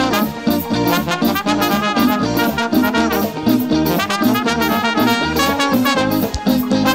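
Live Brazilian lambadão dance-band music: a brass-style horn melody over a steady, fast drum and bass beat.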